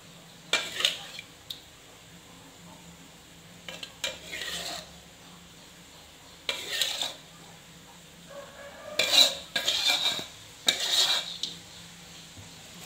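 A metal spoon scraping and clinking against cookware and a ceramic plate as cooked food is scooped onto it, in about five short bursts, the longest and loudest cluster a few seconds before the end.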